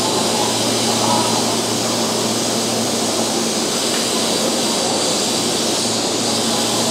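Keihan 3000 series electric train standing at the platform, its on-board equipment giving a steady whirring hum with a low, even drone underneath.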